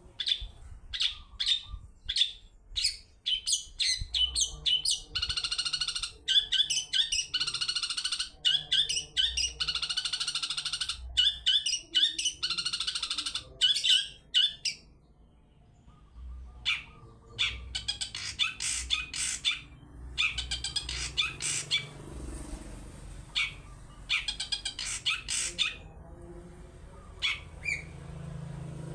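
Long-tailed shrike (cendet) calling in its 'toet toet' style. Sharp, high notes come one after another, at times running together into long, fast strings of chattering, with a short pause about halfway through.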